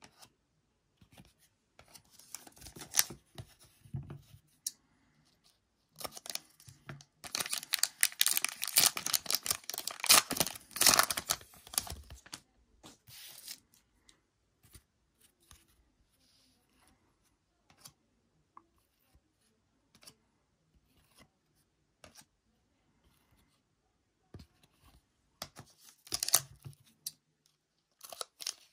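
Trading cards and foil card packs being handled: scattered rustles and clicks, with a dense stretch of rustling and tearing for several seconds in the middle. Scissors cut into a foil pack right at the end.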